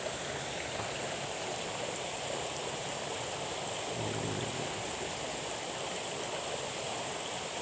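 Steady rush of running water, even and unbroken, with a thin high insect buzz over it.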